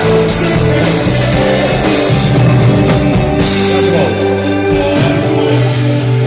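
A rock band playing live: drum kit with cymbal hits over guitar and held chords, loud and steady.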